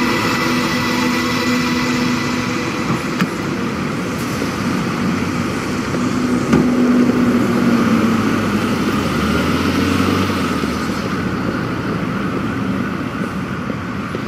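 Busy road traffic: cars and trucks running and passing, with a heavy vehicle going by in the middle and a short click about three seconds in.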